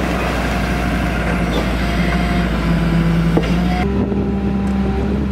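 The engine and hydraulics of an amphibious dredger run with a steady hum while its backhoe arm digs sediment from the lake bed. The sound changes abruptly about four seconds in.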